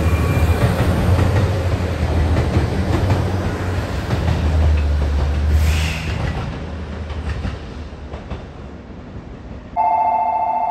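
A train passes close by the platform with a heavy low rumble and wheels clattering over the rail joints, fading after about six seconds. Near the end a two-tone station chime sounds for about a second, the lead-in to a departure announcement.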